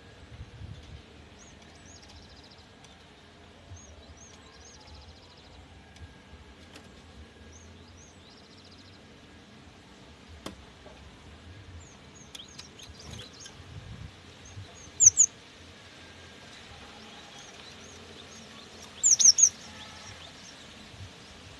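Cinereous tit (gelatik batu) calling with quick, short, high whistled notes, faint for most of the stretch, with two loud brief bursts of song about fifteen and nineteen seconds in.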